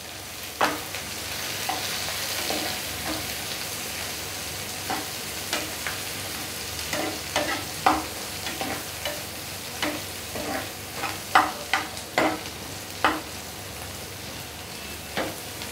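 Chopped shallots, coconut pieces and curry leaves sizzling in hot coconut oil in a small pan, with a steady hiss, while a steel ladle stirs them, clinking and scraping against the pan at irregular moments.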